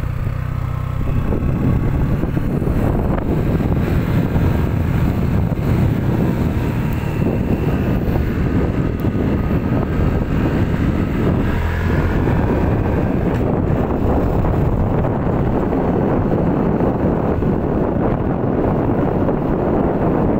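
Wind buffeting the microphone: a steady, loud low rumble with hiss.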